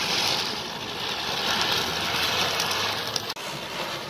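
Ground spinner firework (chakri) hissing steadily as it whirls and throws sparks.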